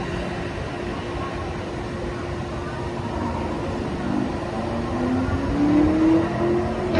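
Steady city traffic noise from a highway with a low constant hum. Over the last few seconds a vehicle's engine note rises in pitch and grows louder, and there is a short sharp click at the very end.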